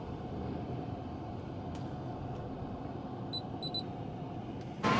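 Low steady car-cabin rumble as the car waits at a car park entry gantry, with three short high electronic beeps about three and a half seconds in, one and then two close together, as the gantry system registers the car.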